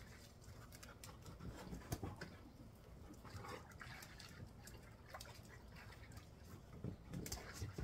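Faint sounds of dogs moving about, with scattered light clicks and soft scuffs.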